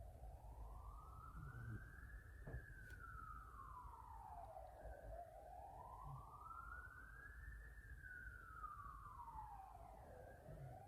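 Faint wailing siren, its pitch slowly rising and falling in two full sweeps of about five seconds each.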